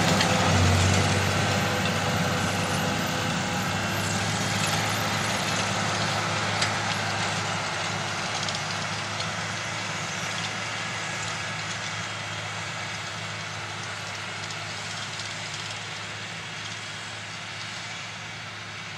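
New Holland tractor's diesel engine working steadily under load as it pulls a seedbed cultivator through the soil. The sound fades gradually as the tractor moves away.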